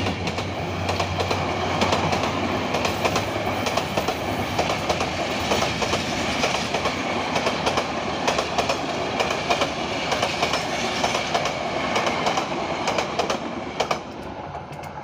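A passenger train rolling past close by: the diesel locomotive's low engine hum fades over the first few seconds, then the coaches' wheels clatter over the rail joints in a steady clickety-clack. The noise drops away near the end as the last coach passes.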